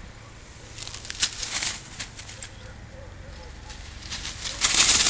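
Long dry grass rustling as it is pushed through, in two bursts: one about a second in, and a louder one near the end.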